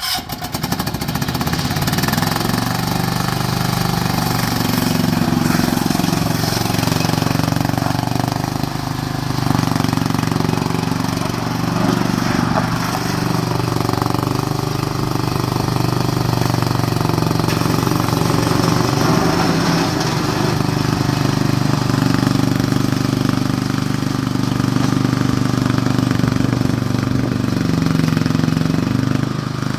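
Bobcat 310 skid steer's engine running steadily, with slight shifts in engine speed along the way.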